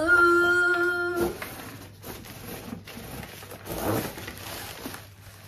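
A voice holds one steady humming note for about a second, the loudest sound here. Then quieter rustling and handling of plastic packaging follow.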